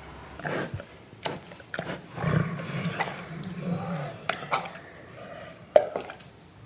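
Large animal growling low and unevenly, with scattered short clicks and knocks, quieter than a full roar.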